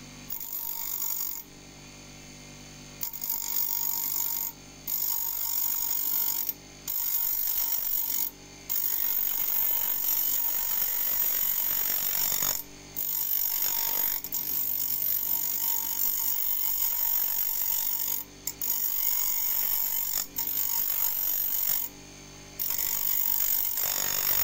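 Bandsaw blade teeth being ground on a bench grinder's thin abrasive disc: high-pitched grinding of steel on the wheel in about nine passes of one to five seconds each. Between passes only the grinder motor's steady hum is heard.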